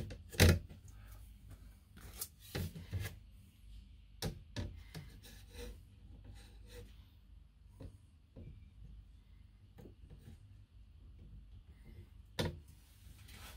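Hands working at a motorhome's sliding window frame and track: scattered knocks and clicks with rubbing. The loudest knock comes about half a second in, more knocks follow in small clusters, and another comes near the end.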